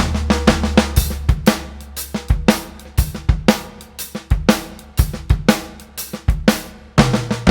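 Acoustic drum kit playing a shuffle groove with Swiss flam triplet fills: snare flams and triplets swept from cymbal crashes, over bass drum, in a steady rolling rhythm.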